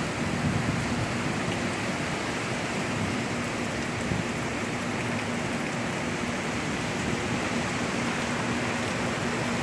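Heavy rain pouring down steadily in a windy storm.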